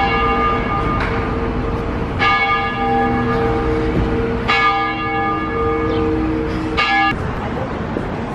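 Church bell tolling: four strokes about two seconds apart, each ringing on over street noise, with the ringing cut off suddenly shortly after the fourth.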